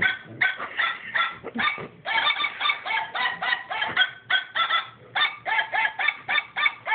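Fast string of short, honking dog-bark sounds from a toy dog puppet, about four or five a second and jumping in pitch like a tune.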